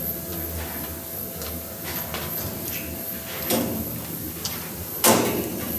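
Two sharp knocks, about three and a half and five seconds in, the second the louder, with a few lighter clicks, over a faint steady hum.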